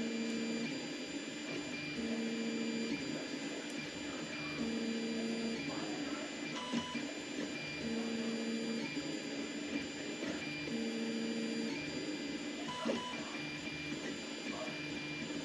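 Tevo Tornado 3D printer running a print: its stepper motors sing in pitched tones that come and go in stretches of about a second every couple of seconds, over a steady high whine and a few small clicks.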